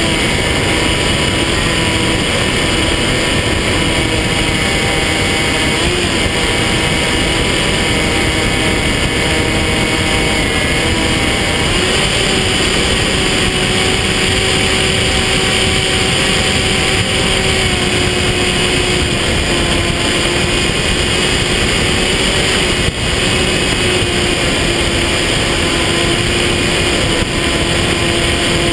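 Electric motor and propeller of an RC foam plane running in flight, heard from the onboard camera with rushing wind noise. The steady whine shifts with the throttle, stepping up in pitch about twelve seconds in and easing slightly later.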